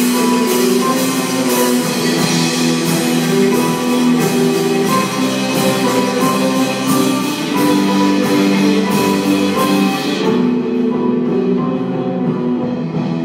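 Live band of keyboard, cello, guitars and drum kit playing instrumental music, poorly recorded. A steady drum beat runs under held chords, then stops about ten seconds in, leaving only the sustained lower notes.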